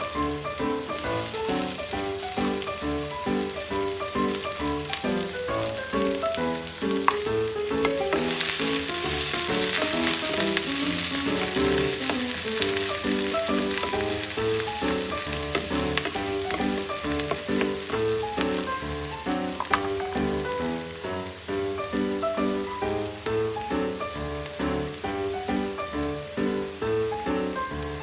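Diced red onion sizzling in hot cooking oil in a frying pan as it is stirred with a spatula; the sizzle grows louder about eight seconds in.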